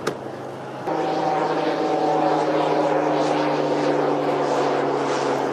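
A steady engine drone sets in about a second in and holds a near-constant pitch, with a low hum under a hissing noise.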